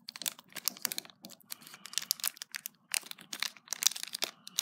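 Thin foil blind-bag wrapper crinkling and crackling in quick irregular bursts as fingers twist and pull at it, struggling to tear it open.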